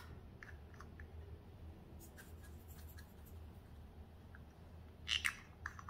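Light clicks and taps from a small plastic cosmetic pot as loose glitter is tapped out of it over slime, with a louder cluster of sharp clicks about five seconds in, over a faint low hum.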